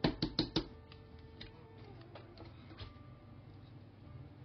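Light plastic-and-steel clicks of a mixer grinder's lid and stainless jar being handled just after grinding a dry spice powder. There is a quick cluster of about four clicks at the start, then a few scattered soft taps.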